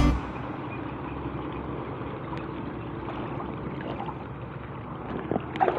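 Shallow seawater sloshing and lapping around someone wading through it: a steady wash of water noise, with a few louder splashes near the end.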